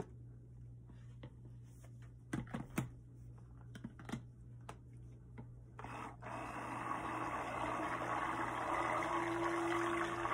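A few light knocks as a stick blender is set into a plastic jug, then about six seconds in the stick blender switches on and runs steadily in black cold-process soap batter, blending out small lumps.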